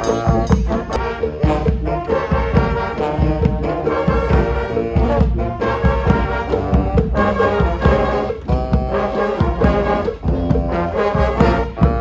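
A street brass band playing live: trombones and trumpets over a sousaphone, with a bass drum keeping a steady beat.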